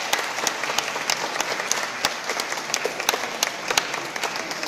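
Applause from a small group of people clapping their hands, a dense patter of many claps that eases off a little near the end.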